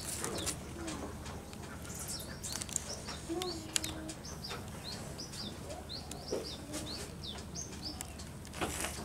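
Small birds chirping: many short, high, downward-sliding peeps repeated throughout, with scattered light clicks and rustles.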